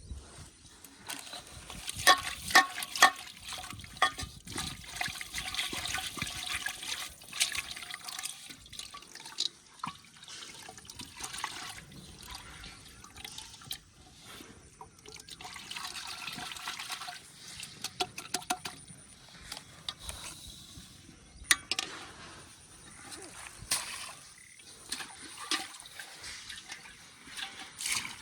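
Muddy canal water splashing and sloshing in irregular bouts, with scattered sharp clicks and knocks.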